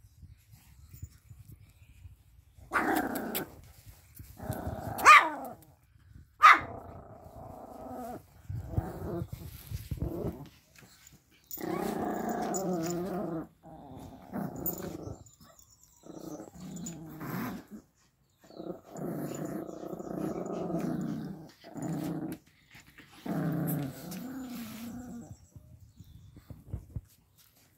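Pomeranians growling at each other in play, in repeated growls of a second or two each, with a couple of sharp yaps about five and six and a half seconds in.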